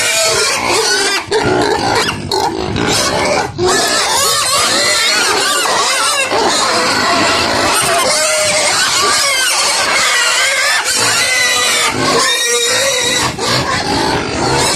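Many pigs squealing and grunting together, loud and continuous, with overlapping high wavering squeals.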